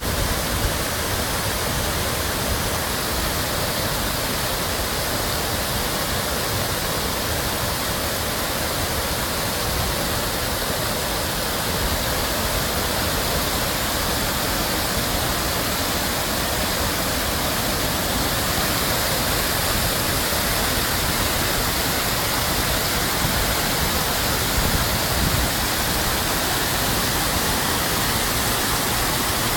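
Water pouring down an artificial cascade, a steady, loud rushing splash with no breaks.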